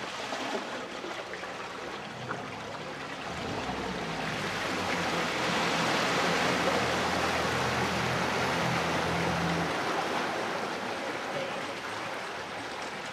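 Canal water rushing and splashing close to the microphone, growing louder toward the middle. A low steady hum runs under it for several seconds and stops shortly before the end.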